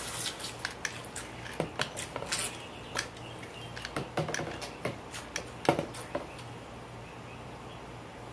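Small battery-powered RC toy boat running in a small plastic tub of water: irregular light clicks and taps with water splashing, the loudest tap a little past halfway, over a faint steady low hum.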